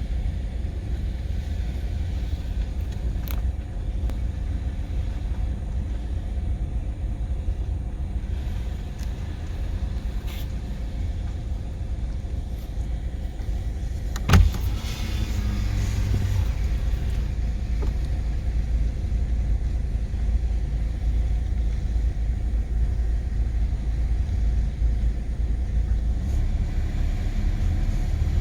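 Subaru XV 2.0 at low speed with a steady low rumble, and a sharp harsh grinding about halfway through that lasts a second or two. The grinding is the car's recurring fault, which the dealer puts down to the front left brakes and rotors.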